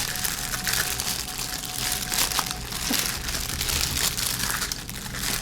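Packaging being crinkled and rustled by hand as it is unwrapped, a continuous irregular crackling.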